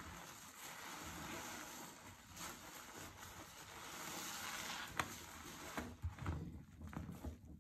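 A soaked, heavily lathered sponge being squeezed and kneaded by hand, squelching wetly with a steady crackle of foam. One sharp click comes about five seconds in, and near the end the squelches turn lower and more uneven as the sponge is pressed down into the sudsy sink water.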